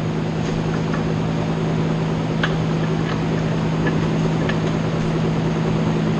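Steady drone of running machinery with a low, even hum, broken by a few light metallic clicks near the middle.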